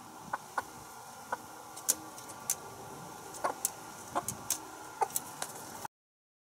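Short, soft chicken clucks and scattered sharp clicks and chirps over a faint steady garden background. The sound cuts off abruptly near the end.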